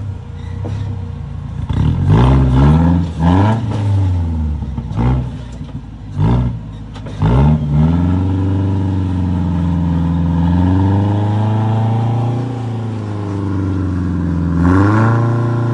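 Rock crawler buggy's engine revving in several short bursts as it works up a rock ledge, then held at higher revs with the pitch wavering up and down, with another rev near the end.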